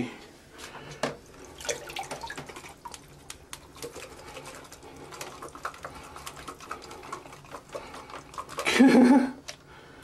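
Faint sloshing and dripping of water in a filled bathroom sink, with scattered small handling clicks. About nine seconds in comes a brief, loud vocal sound.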